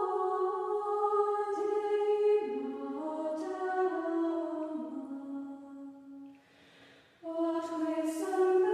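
Women's choir singing a slow sacred chant in sustained notes that step from pitch to pitch. The phrase fades away about six seconds in, and a new phrase begins about a second later.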